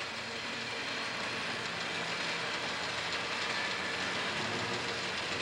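Jet fighter engine noise, a steady rushing roar that swells slightly in the first second and then holds even.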